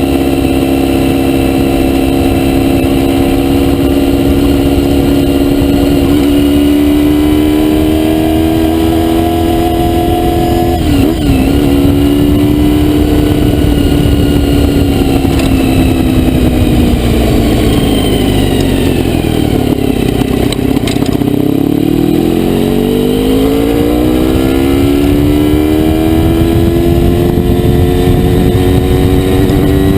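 Honda VFR400R's V4 engine running at high revs: held steady at first, a quick dip and recovery about eleven seconds in, then the revs fall slowly for about ten seconds and climb again through the last stretch. A low rush of wind noise runs underneath.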